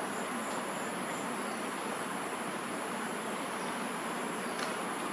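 Steady, continuous high-pitched insect chorus over a broad, even background hiss.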